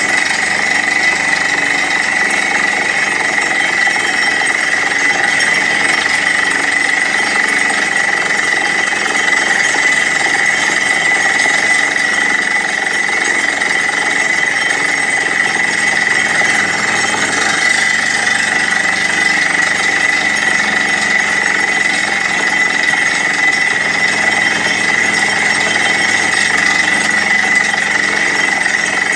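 Truck-mounted borewell drilling rig drilling with its air hammer: engine and compressor running steadily under the hammering of the bit, with a constant high whine, while compressed air blows rock dust out of the bore hole.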